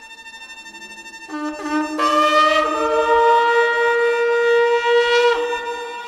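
Shofar blown in one long blast starting about a second in. It opens on a low note, steps up in pitch twice, holds a steady high note and breaks off shortly before the end.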